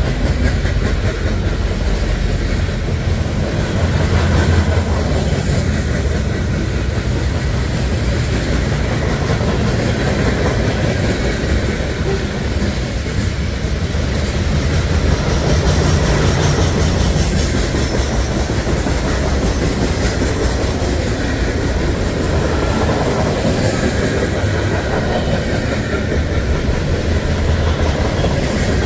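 Train rolling past for the whole stretch, a steady heavy rumble with the wheels clacking over the rails.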